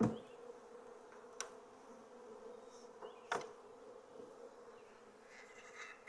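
Honeybees from an open hive buzzing as a steady low hum, with three sharp clicks or knocks, the loudest at the very start and others about a second and a half and three and a half seconds in.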